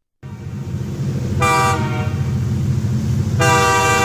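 Diesel locomotive running with a low engine rumble and sounding its horn: a short toot about a second and a half in, then a long blast starting near the end.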